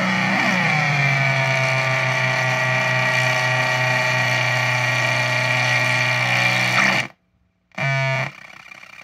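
Ugly Face-style oscillating fuzz pedal (PedalPCB Nutty Fuzz and Dead Air Face circuits in parallel) droning through an amp: a buzzy, synth-like tone that slides down in pitch in the first second, then holds steady. It cuts out suddenly about seven seconds in, comes back briefly as a fast warble, then drops much quieter.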